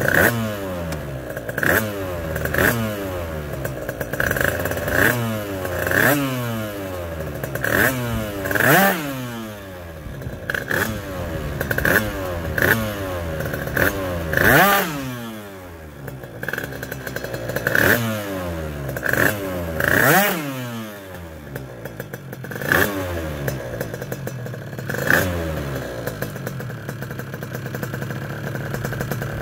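Yamaha Zuma 50 scooter's Minarelli two-stroke engine, fitted with a TPR 86 kit and an expansion-chamber exhaust, warming up from a cold start. It idles between quick throttle blips, each a short rev that rises and falls. The blips come every second or so, and further apart near the end.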